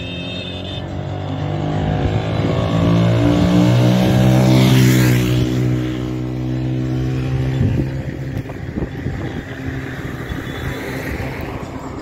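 A motor vehicle passes along the road: its engine and tyres grow louder, peak about five seconds in, then fade away.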